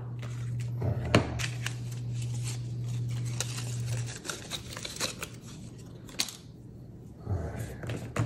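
Paper and plastic packaging being torn and crinkled as a laptop charging brick and cable are unwrapped, with scattered sharp handling clicks. A low steady hum drops away about halfway through.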